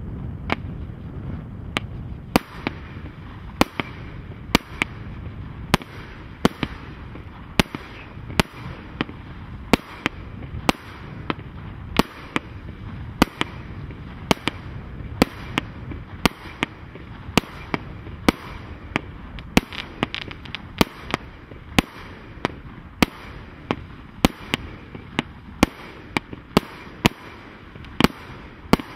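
Mars Pyrotechnics 'The Godfather Part 2' firework barrage firing shot after shot: sharp bangs about one and a half a second, over a steady background hiss. The bangs begin about half a second in.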